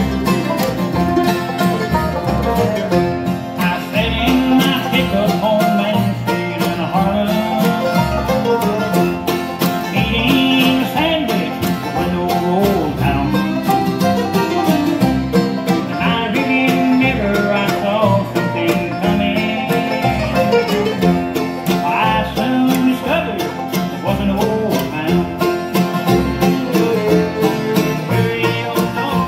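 Bluegrass band playing live: five-string banjo, mandolin, fiddle, acoustic guitar and upright bass, with the bass keeping a steady beat under quick picked melody lines.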